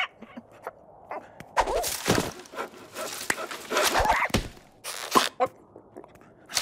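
Cartoon sound effects: scattered knocks and footsteps, then two loud stretches of crashing and thudding, mixed with a creature's grunts and squawks.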